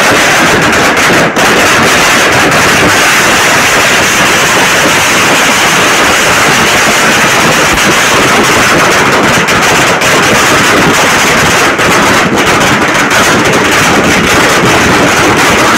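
Firecrackers bursting on the ground in a dense, unbroken crackle, loud enough to overload the microphone.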